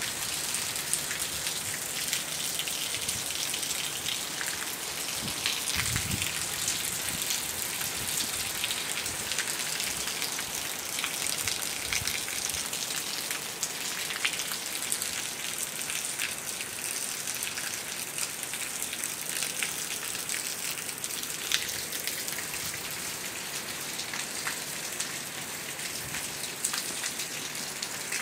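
Heavy rain pouring down steadily: an even hiss of rainfall with many small sharp drop hits through it.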